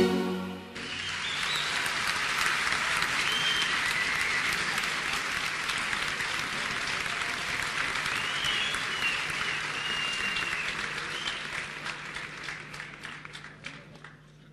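Large audience applauding at the end of a song: the clapping swells in about a second in, holds steady, then thins to scattered claps and dies away near the end.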